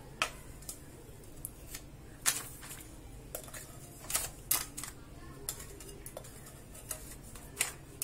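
Utensil knocking and scraping against a bowl as crumbly ghee-roasted flour and sugar mixture is pushed out into a paper-lined cake tin: about a dozen sharp, irregular clicks and knocks.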